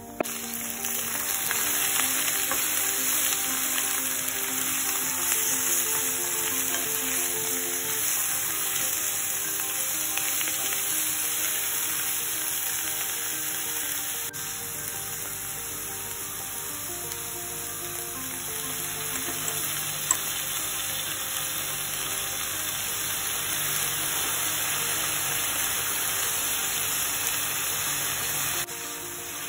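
Garlic and steamed vegetables frying in hot oil in a stainless steel pan: a steady sizzle that comes in suddenly at the start, over soft background music.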